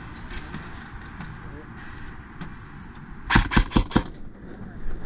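A quick burst of four sharp shots from an airsoft gun, about three and a half seconds in.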